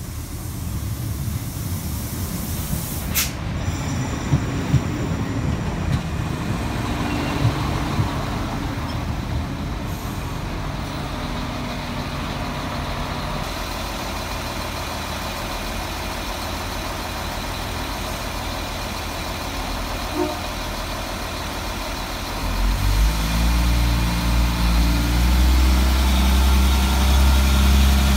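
Iarnród Éireann diesel multiple unit pulling into the platform, its wheels rumbling and knocking over the rail joints, with a short sharp air hiss about three seconds in. It then stands with its diesel engines running steadily, and near the end the engines power up to a louder, deeper note.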